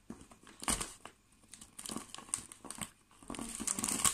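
Packing tape wrapped around a cardboard parcel crinkling and tearing as it is pulled off by hand, in irregular bursts with sharp clicks, busiest near the end.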